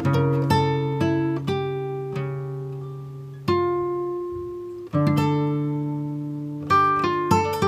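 Background music: acoustic guitar, plucked notes and chords that ring out and fade, with a quicker run of notes near the end.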